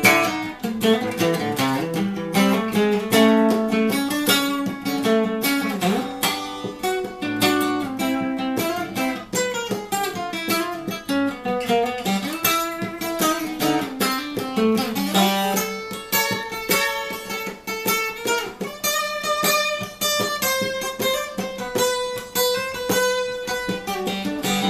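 Instrumental guitar break: a guitar played with many quickly picked notes that move in a melodic line, with no voice.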